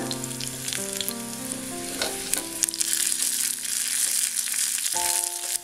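Tempering spices (mustard seeds, shallot and dried red chillies) sizzling in hot coconut oil in a small pan, with scattered crackles. A spatula stirs them in the pan.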